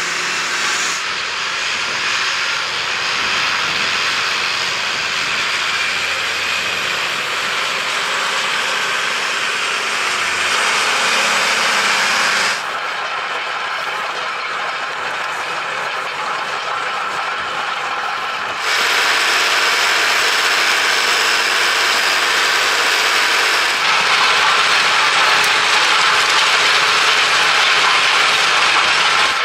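Versatile 315 tractor running under load, pulling a disc cultivator and a Cambridge roller across the field, with a steady metallic rattle and clatter from the working implement. The sound changes abruptly in level several times, about 12 and 18 seconds in and again near 24 seconds.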